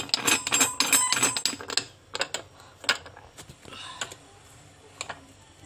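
Stainless-steel pressure cooker lid being fitted and locked: a quick run of metal clicks and clatter for about two seconds, then a few separate clicks.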